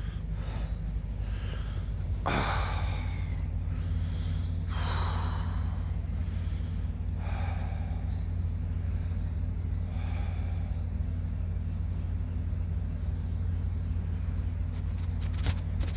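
A person breathing heavily close to the microphone, four breaths about two and a half seconds apart, over a steady low rumble.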